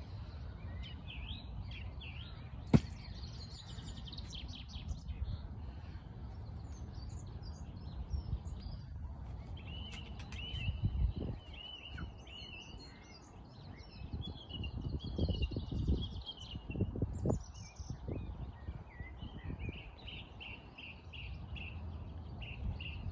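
Wild birds chirping and singing over low, gusty wind noise on the microphone, with one sharp click about three seconds in.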